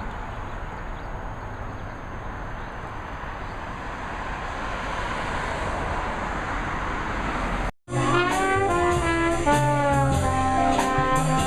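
A steady rushing noise, slowly growing louder, cuts out abruptly about eight seconds in. Jazzy music led by brass instruments such as trombone and trumpet starts right after the cut.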